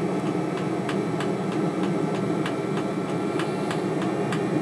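Webasto water coolant heater running steadily during warm-up just after lighting: a constant burner-and-fan hum with faint, fairly regular ticks about three a second. It has no exhaust silencer fitted.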